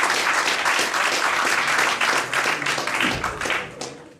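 Audience applauding at the close of a talk, dense clapping that fades out near the end.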